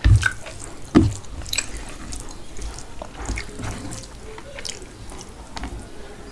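Eating sounds of mutton curry and rice: wet chewing and lip-smacking clicks, with a low thump at the start and another about a second in.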